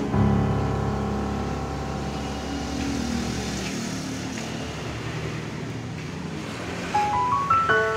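Background music: held chords fade out over a low rumble that stops about halfway through, then a rising run of bell-like mallet notes near the end.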